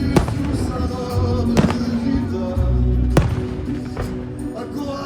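Fireworks going off over a musical soundtrack of held notes, with three sharp bangs about a second and a half apart.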